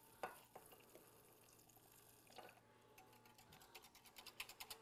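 Faint, quick ticking of a wire whisk against a glass measuring cup, several ticks a second, starting about three seconds in, with a few faint clinks before it. Melted butter is being whisked into a milk mixture.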